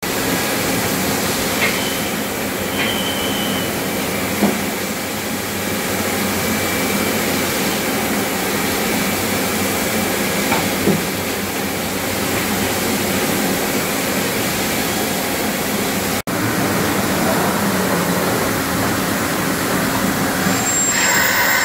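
Niigata HN63D horizontal machining center running: a steady mechanical hum with a thin high whine and a few light clicks as the spindle head moves. A louder, higher whine starts near the end.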